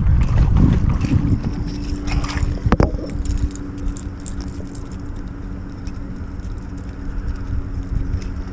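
Wind buffeting the microphone, a loud low rumble that eases after about a second, under a steady low mechanical hum. A single sharp click comes nearly three seconds in.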